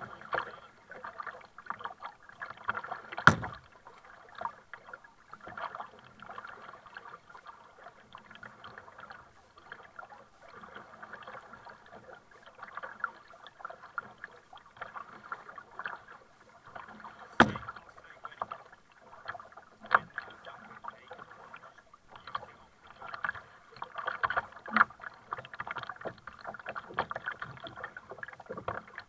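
Double-bladed kayak paddle stroking and splashing as a sit-on-top kayak moves through shallow sea water, with water slapping along the hull. Two sharp knocks stand out, about three seconds in and a little past halfway.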